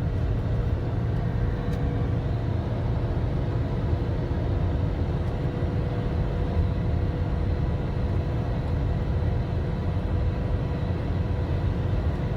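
Toyota Innova's D4D diesel engine running steadily, with its viscous clutch fan, freshly drained of excess silicone fluid, turning behind it: a low, even rumble with a steady hum over it.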